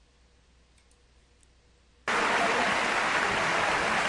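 Near silence with a couple of faint clicks, then about two seconds in an audience's applause starts suddenly and continues steadily. The clapping comes from the embedded video's soundtrack as it begins playing.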